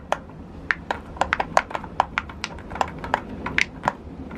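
Silicone pop-it fidget toy bubbles being pressed one after another: an irregular string of small sharp pops, several a second.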